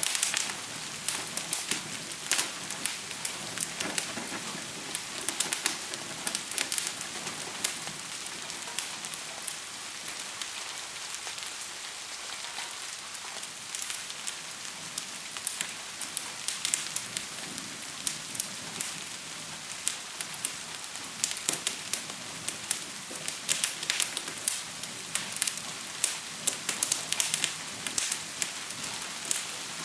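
Wood fire crackling and popping over a steady hiss of rain, with clusters of sharp pops every few seconds.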